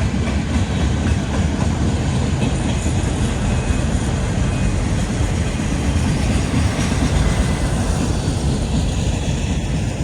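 Freight train cars rolling past on the rails: a steady, loud rumble with wheel clickety-clack. The higher part of the sound eases off near the end.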